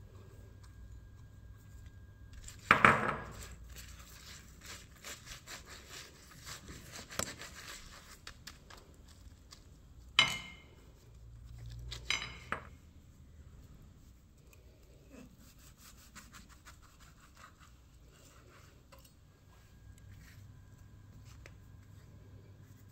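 Kitchenware handling with a small metal bowl and a silicone pastry brush over a plate: a knock about three seconds in, light tapping and dabbing ticks, then two short ringing clinks about ten and twelve seconds in.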